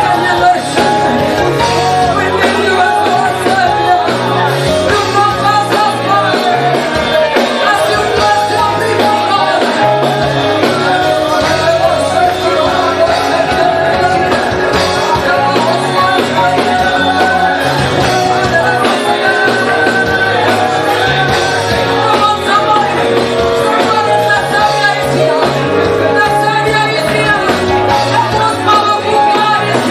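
Worship music: voices singing over a full band, loud and steady throughout.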